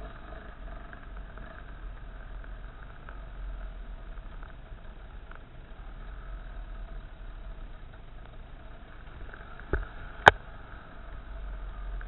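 Off-road motorcycle engine running at a fairly steady throttle over rough dirt track, with a low rumble of wind and ground under it. Two sharp knocks about ten seconds in, the second much the louder.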